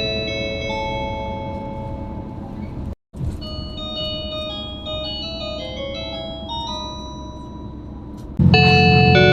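Onboard announcement chimes of a JR Hokkaido KiHa 281 series diesel express train: short melodies of clear electronic bell tones over the low running rumble in the cabin. One chime breaks off about three seconds in and a second melody starts. A louder third chime begins near the end.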